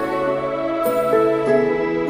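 Soft, slow background music, with sustained notes that change pitch every half second or so.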